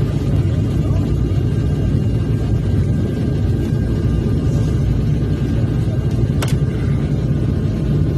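Steady cabin drone of an ATR twin-turboprop airliner's engines and propellers during the landing approach, a low even running rumble with faint steady whining tones above it. A single sharp click about six and a half seconds in.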